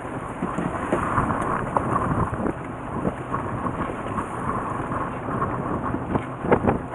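Wind buffeting the microphone over the steady noise of a fishing boat on the water, with a couple of sharp knocks near the end.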